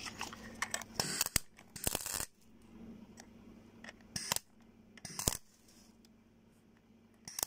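Welding torch striking brief arcs on a rusted-through scooter exhaust pipe to patch its holes: about five short crackling bursts, each under half a second, with quiet between.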